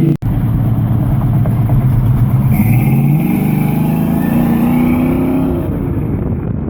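1985 Chevy Silverado pickup's engine running, its pitch rising about two seconds in and easing off again near the end.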